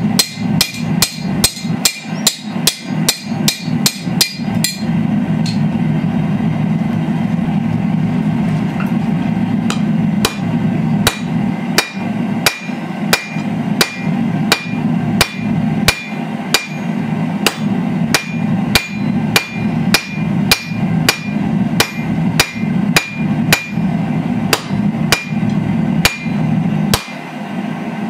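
Hand hammer striking red-hot steel on an anvil, about two to three blows a second, each with a short metallic ring. The blows pause for about five seconds a few seconds in, then resume at a steady pace. A steady low hum runs underneath.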